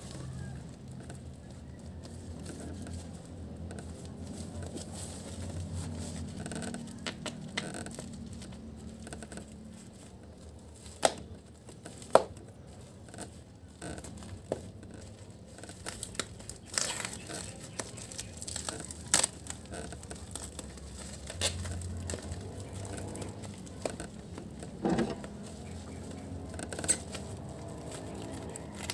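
Packing tape being peeled and torn off a bubble-wrap parcel, with the plastic wrap crinkling and rustling under handling and scattered sharp clicks and snaps. Scissors cut into the wrap near the end.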